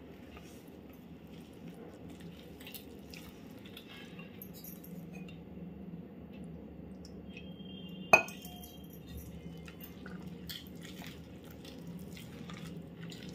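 Steel ladle stirring thick, lumpy flour-and-buttermilk batter in a stainless steel bowl: soft stirring and scraping with small clicks, and one sharp clink of the ladle against the bowl about eight seconds in, over a faint low hum.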